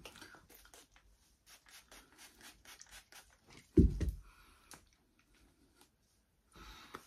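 Faint rustling and scratching of hands moving through long hair and clothing, with one dull, deep thump about four seconds in.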